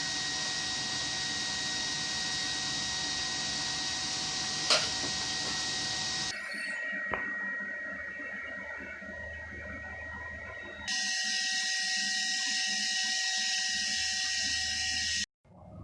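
Air blower on a coal forge running steadily, a whooshing hiss with a thin whine, and a single sharp metallic clink about five seconds in. The sound changes abruptly twice and cuts off just before the end.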